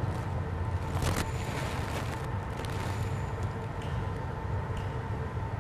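Motorcycle engines running amid street traffic, a steady low rumble, with a brief burst of noise about a second in.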